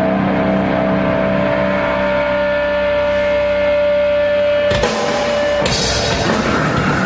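Live rock band with distorted electric guitars: a held guitar note rings steadily, then about four and a half seconds in the drums and the full band crash in, with cymbals joining a moment later.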